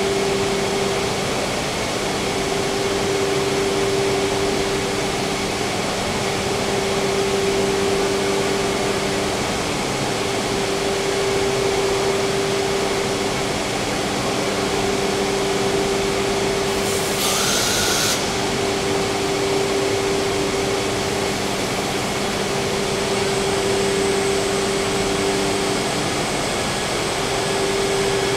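Freedom Machine Tool Patriot CNC router running, a steady rushing drone with a hum that drops out briefly every few seconds as the gantry travels. A short hiss comes about seventeen seconds in.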